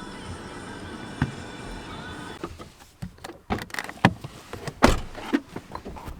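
Background music that cuts off about two and a half seconds in, followed by a run of sharp knocks and clunks.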